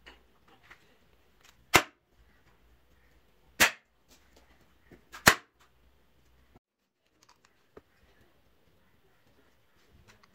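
Three sharp hammer blows, a little under two seconds apart, setting the axe head onto its wooden handle. Faint small clicks follow.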